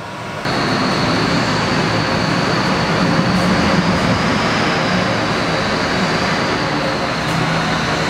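Automated car-lift machinery (turntable and shuttle drive) running: a steady mechanical hum with a thin, high, constant whine, starting abruptly about half a second in.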